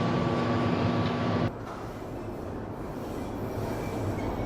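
Steady rushing machine noise with a constant hum, which cuts off abruptly about a second and a half in, leaving a quieter steady rush.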